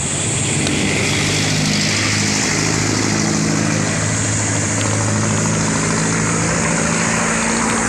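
Steady wind and road noise from riding a bicycle along the road, with the low, even hum of motor-vehicle engines in the traffic alongside.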